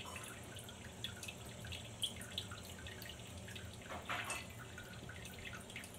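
A Sphynx cat urinating into a toilet bowl: a long, steady trickle of urine dripping and splashing into the water, with a briefly louder moment about four seconds in.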